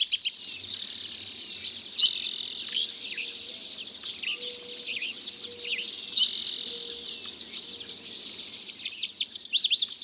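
Dawn chorus of many songbirds singing over one another. Rapid runs of repeated high, down-slurred notes come at the start and again near the end, and two denser, louder phrases cut in about two and about six seconds in.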